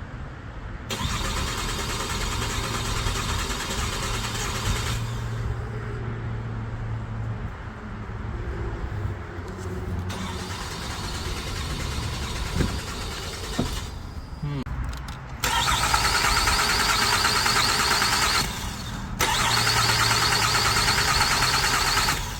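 A 2006 Mercury Milan's starter cranking the engine in several attempts a few seconds each, every one stopping abruptly without the engine catching. This is a crank-no-start, which the owners put down to no spark.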